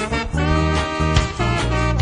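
Music: an instrumental stretch of a song, with a regular beat, held notes and a strong bass line.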